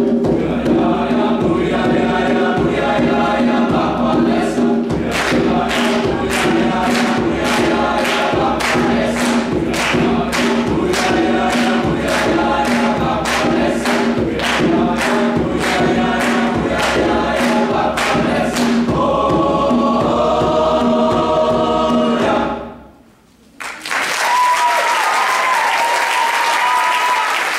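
Men's choir singing in full chords, with a steady percussive beat of about two strokes a second through the middle. The final chord is held and cuts off, and after a brief pause the audience applauds.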